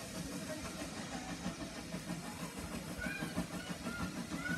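GWR 57xx pannier tank steam locomotive No. 7714 working a train towards the listener, its exhaust beating in a steady rhythm with the rumble of the train on the rails.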